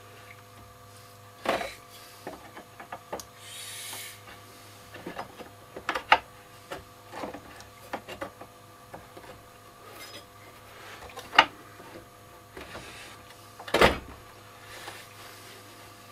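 Scattered clicks, taps and sharp knocks of small metal parts and tools being handled while refitting a tape recorder's chassis into its case, with a brief rustle about four seconds in and a steady low hum beneath.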